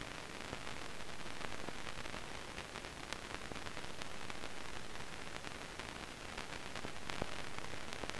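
Old-film soundtrack noise: a steady hiss with scattered clicks and pops.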